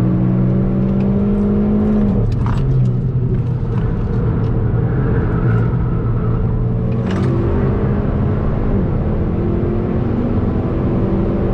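Hyundai i30N's turbocharged four-cylinder engine heard from inside the cabin at track speed: it pulls, drops away suddenly about two seconds in, runs on and then climbs in pitch again in the second half. A few sharp cracks come where the engine note drops.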